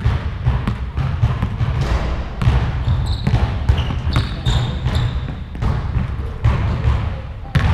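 Basketball dribbled on a hardwood gym floor: a quick run of bounces echoing in a large hall, with one sharp loud bounce near the end.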